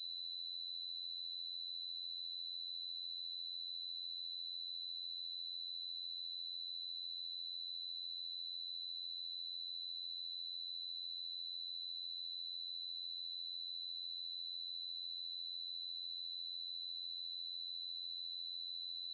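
A steady pure sine-wave test tone at 3957 Hz, a single high-pitched whistle-like note held at constant loudness.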